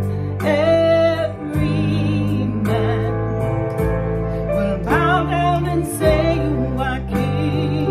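Slow gospel worship music: a woman singing held notes with vibrato, in short phrases, over sustained instrumental chords.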